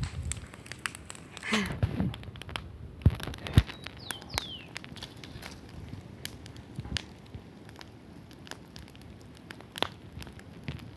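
Campfire crackling, with irregular sharp pops and ticks from the burning wood.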